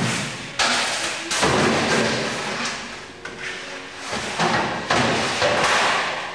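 Repeated thumps and clatter of stainless steel plates being handled and set down in a rectangular cheese vat. There are about six knocks, each dying away over about a second.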